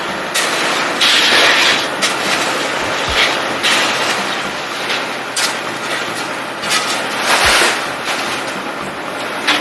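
Continuous mechanical running and rattling with irregular louder surges and a few low knocks, typical of a site concrete mixer churning a batch for the deck pour.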